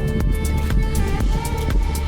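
Background music with a steady electronic beat and deep bass.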